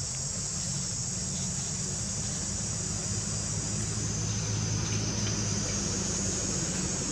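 Steady outdoor ambience: a continuous high-pitched insect chorus over a low, even hum.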